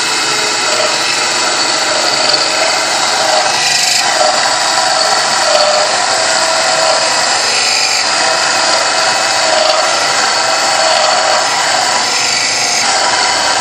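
Small student-built benchtop lathe (MIT 2.72) running under cut: the spindle motor hums steadily with a constant tone while the tool turns a metal workpiece. The cutting noise shifts a little as the tool is fed by hand.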